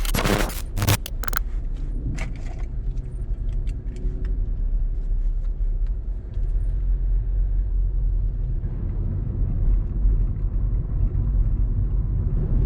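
A car running on the road, heard from inside the cabin: a steady low rumble of engine and road noise, after a few sharp knocks in the first second and a half.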